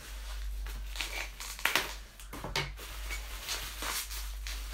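Plastic bubble wrap being pulled open and handled by hand: soft crinkling and rustling with a few sharp crackles.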